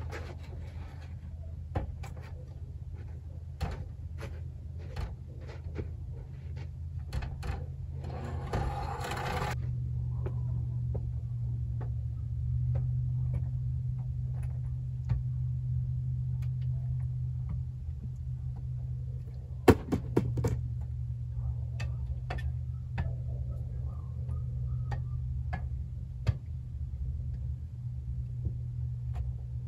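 Aluminium extension ladder knocking and clanking as it is raised against the house and climbed, with the sharpest knocks about two-thirds of the way through, over a steady low rumble.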